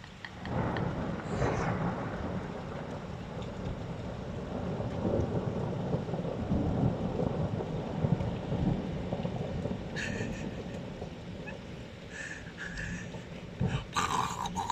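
Long rumble of thunder rolling on for about ten seconds under heavy rain. It starts about half a second in.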